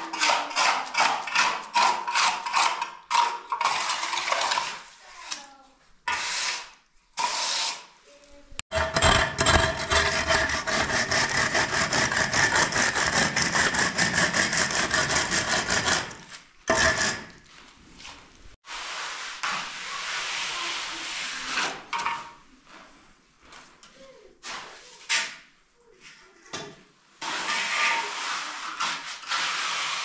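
Hand trowel scraping over wet cement screed in quick repeated strokes. A wooden straightedge is then sawed back and forth across the wet cement for several seconds, giving a long, continuous scraping rasp. Scattered trowel scrapes follow.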